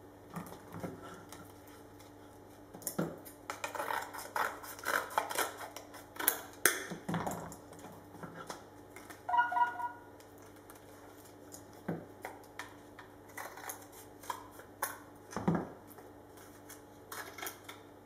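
Hands laying and pressing carbon fiber cloth onto a motorcycle-part mold at a workbench: irregular taps, clicks and rustles of cloth and tools being handled, with a brief metallic ring about nine seconds in. A steady low hum underneath.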